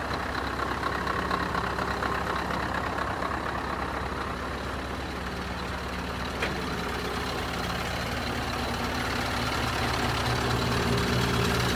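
Scania R500 truck's V8 diesel engine idling steadily, growing somewhat louder near the end.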